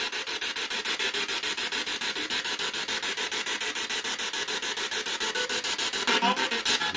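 Spirit box (ghost box) radio scanner sweeping rapidly through stations through its speaker. It gives a steady chopped static hiss at about ten pulses a second, with a brief snatch of broadcast sound about six seconds in.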